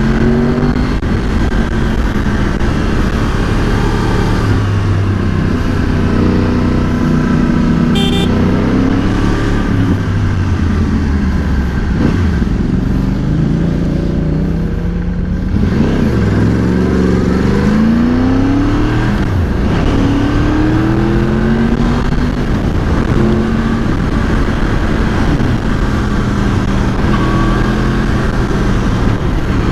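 Motorcycle engine heard from the rider's position while riding, its pitch rising under acceleration and dropping back several times through gear changes and roll-offs. A short high-pitched tone sounds about eight seconds in.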